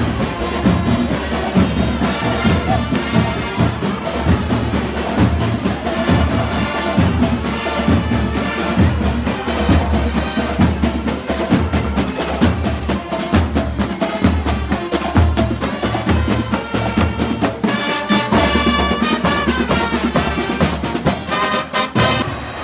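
Live street band of brass and drums playing, with a steady beat on bass drum and percussion under trumpet and horn lines that come through most clearly in the last few seconds.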